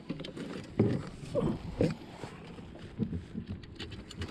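Irregular thuds and knocks of a landing net and fish being handled against a plastic kayak's deck, a cluster of them between one and two seconds in and a few more about three seconds in.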